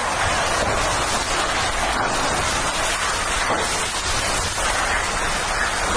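Hurricane wind and driving rain: a loud, steady rushing noise, with low wind rumble on the microphone.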